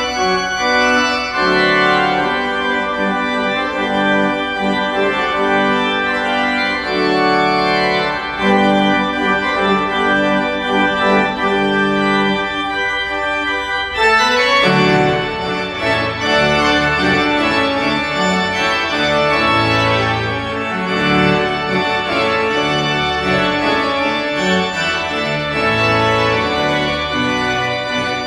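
Church pipe organ playing a fanfare postlude in full sustained chords. About halfway through the sound fills out, with deeper bass notes and faster-moving chords.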